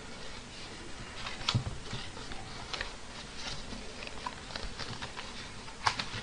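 Small clicks and taps of tableware and a plastic food container being handled while eating, with a louder knock about a second and a half in and a sharper click near the end.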